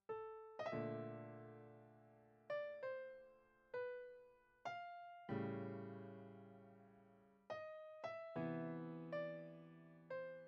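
Piano music played slowly: single notes and sustained chords, each struck and left to fade.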